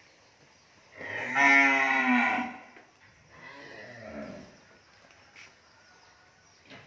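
A cow moos loudly once, for about a second and a half, then gives a second, quieter moo that falls in pitch as it ends.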